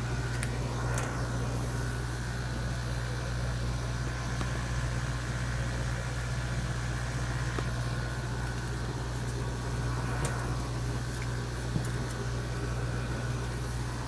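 Two 5000 BTU window air conditioners converted to a liquid chiller, running with a steady low hum, not that loud. A few faint clicks from the box being handled.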